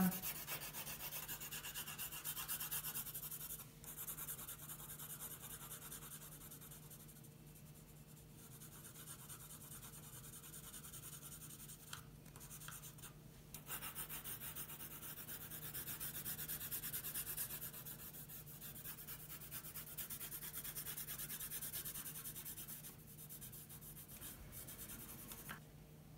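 Coloured pencil held flat and shading paper in quick back-and-forth strokes: a steady scratchy rasp, broken by a few brief pauses.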